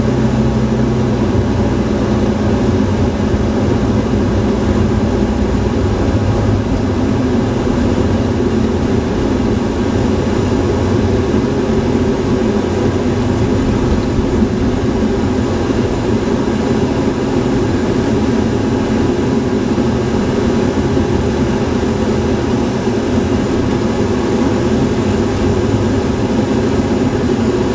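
Steady driving noise heard from inside a moving car: engine hum and tyre and road rumble at an even speed.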